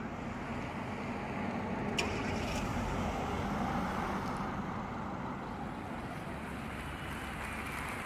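Road traffic noise: a car going by on the road, swelling to its loudest about halfway through and easing off again.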